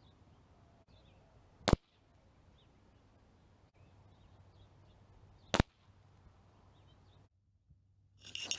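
Two sharp air rifle shots about four seconds apart, heard from the target end of the range, with faint bird chirps between them. Just before the end, the sound cuts out briefly, then a rush of wind noise on the microphone starts.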